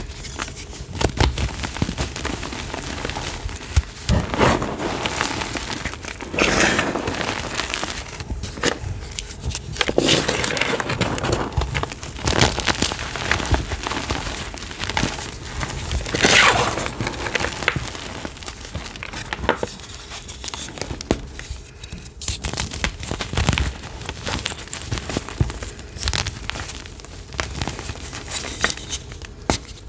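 Chalk being crushed: continuous irregular crunching and crumbling, with several louder crunches spread through.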